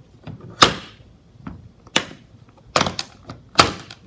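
Hard plastic carrying case being shut: the lid comes down with a sharp knock, then its two front latches are snapped closed in a few sharp plastic clicks.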